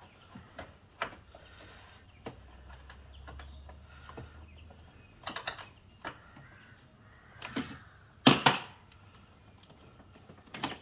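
Irregular clicks and clinks of a hand tool on the battery fittings in a car's engine bay as the old battery is being undone, with a louder pair of knocks about eight seconds in.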